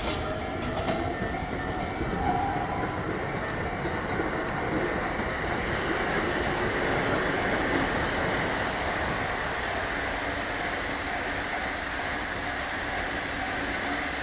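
Container freight train rolling past at steady speed, its wagon wheels rumbling and clacking along the rails.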